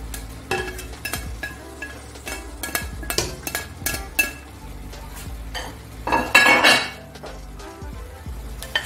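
A metal spoon scraping and clinking against a ceramic plate and a steel pot as chopped bell peppers are pushed off into frying pepper sauce, with a low sizzle underneath. Many short clicks and scrapes, and a louder noisy stretch about six seconds in.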